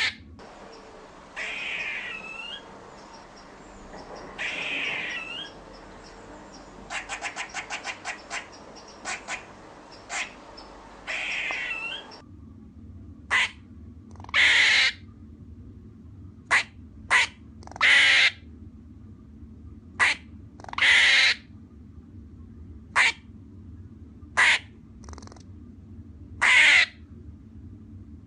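Squirrel barking in alarm: harsh calls, some short and some drawn out, repeated every second or two. In the first part there is a quick run of about ten clicking chucks, and partway through the background changes, as if a second recording begins.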